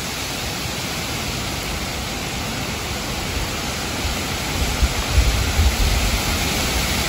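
Heavy rain pouring down in a steady hiss on a street, lawns and trees. A few low thumps come about five seconds in.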